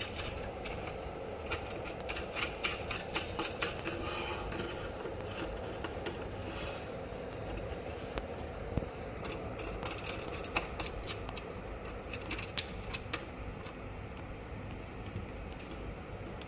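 Quick metallic clicks and rattles in two clusters, about two seconds in and again around ten seconds in, from clamp screws and star-shaped nuts being tightened to hold a workpiece on a CNC engraver's bed. A steady low hum sits underneath.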